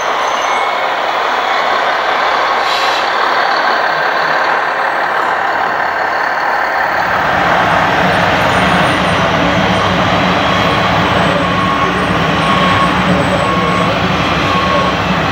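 Radio-controlled Mercedes-Benz Arocs tipper truck driving through loose soil, a steady mechanical noise with hiss; a deeper rumble joins about seven seconds in.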